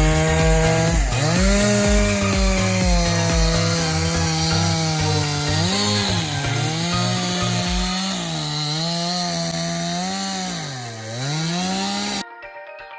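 Chainsaw running at high revs, its pitch dipping sharply three times as the chain bites into wood, then cutting off abruptly near the end.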